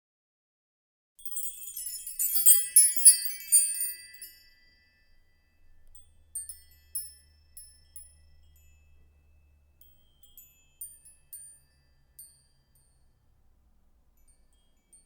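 High, tinkling chime notes: a dense flurry for about three seconds, then scattered single tinkles that thin out and fade.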